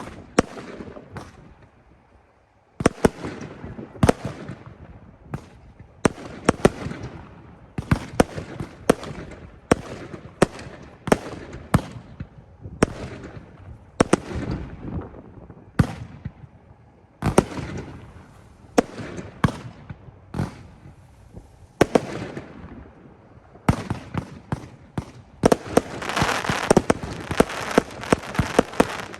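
A consumer firework cake firing outdoors: a rapid, irregular series of sharp launch thumps and aerial reports, usually about one to two a second, with a short lull about two seconds in. Near the end the shots crowd together into a dense stretch of crackle.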